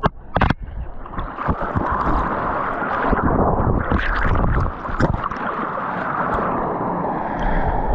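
Turbulent water churning and gurgling below a waterfall, recorded close up by a GoPro. Two sharp knocks come right at the start.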